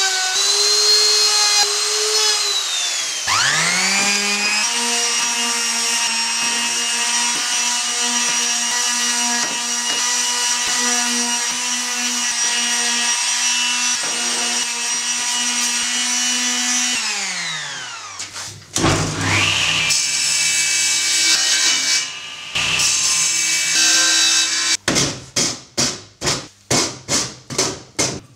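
Makita power tools on oak: a router's motor whines, spins down briefly and spins back up, runs steadily, then winds down; a rougher, lower tool sound follows, as from a palm sander. Near the end comes quick, regular tapping, about two to three strikes a second.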